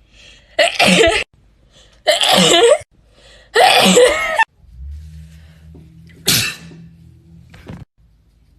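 A woman sneezing loudly three times in quick succession, each sneeze voiced and about half a second long. After that a low steady hum sets in, with one more short, sharp sneeze over it.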